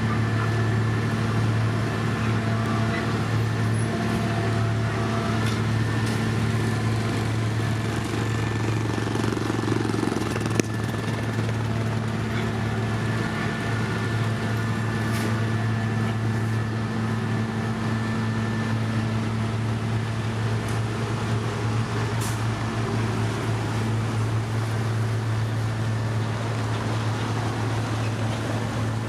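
Diesel engine of heavy road-construction machinery running steadily at a constant speed, with one sharp knock about ten seconds in.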